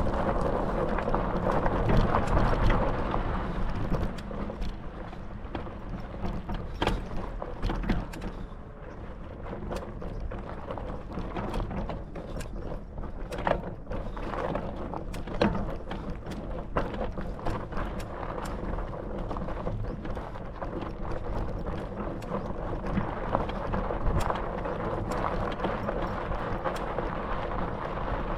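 Bicycle ridden over a rough track: tyre noise and rattling clicks over wind on the microphone, louder for the first few seconds.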